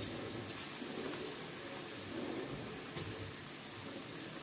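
Coarsely ground chana dal batter deep-frying in hot oil in a steel kadai: a steady sizzle, with a couple of faint ticks.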